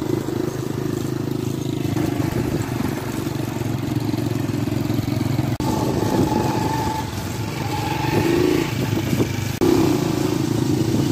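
Small motorcycle engines running steadily while riding along a dirt road, with a brief break about halfway through.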